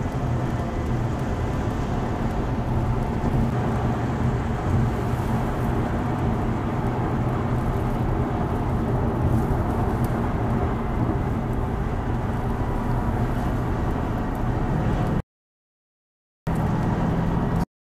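Steady road and engine noise inside a car's cabin at highway speed, with a low hum and no distinct events. The sound cuts off to dead silence for about a second near the end, returns briefly, then cuts off again.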